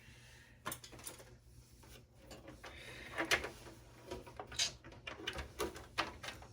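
Scattered light clicks and knocks of computer parts being handled, plastic and metal tapping and clattering as a desktop PC is taken apart, over a faint low hum.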